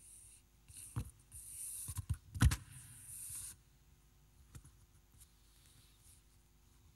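Rustling and handling noises close to the microphone, with a few dull knocks, the loudest about two and a half seconds in. The rustling stops about three and a half seconds in, and one faint knock follows.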